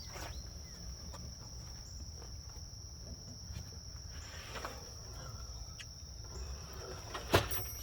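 Steady high-pitched insect trilling, with a few faint knocks and one sharp clank about seven seconds in.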